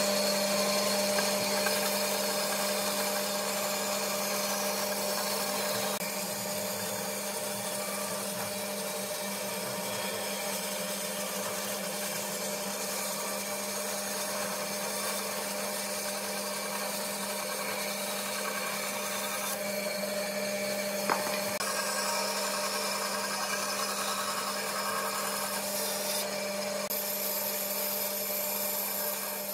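Bandsaw running with a steady hum, its blade cutting a curve through a thick wooden block. One brief sharp tick about two-thirds of the way through.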